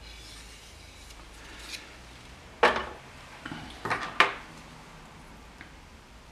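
Hard plastic parts being handled and set down: one sharp knock about two and a half seconds in, then a couple of lighter clicks about a second later.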